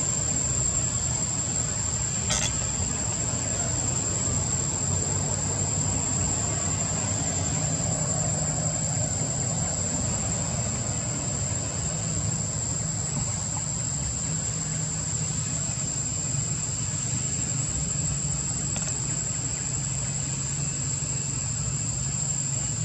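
Steady outdoor background: a continuous high-pitched insect drone over a low, even rumble.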